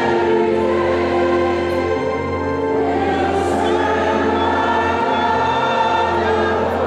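Music: a choir singing a slow song with long held notes.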